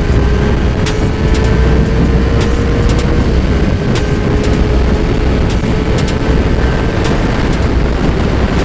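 Motorcycle riding at speed: heavy wind rumble on the helmet or bike microphone over a steady engine drone that climbs slowly in pitch, with scattered small clicks.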